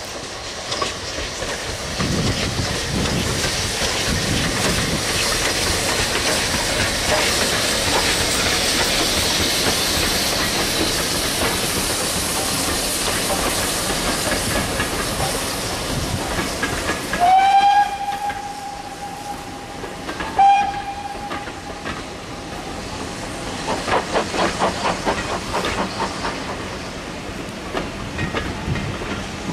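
Two double-headed steam tank locomotives and their passenger coaches pass close by with a steady rush of noise. About halfway through, a locomotive steam whistle sounds a long blast and then a shorter one. Later the coach wheels click rhythmically over the rail joints.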